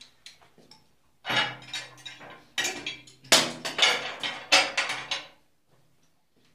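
Hard objects knocking and clinking together in a quick run of clatters lasting about four seconds, the kind of sound made when tap parts and tools are handled.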